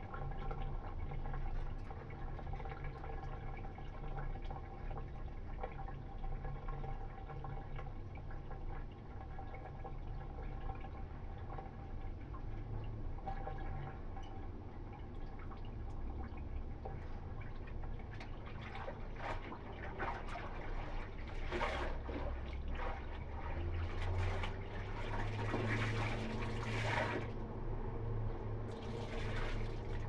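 Water sloshing, splashing and dripping as clothes are hand-washed in a plastic basin, over a steady background hum. The splashing grows louder in the last third, with water running back into the basin as a garment is wrung out near the end.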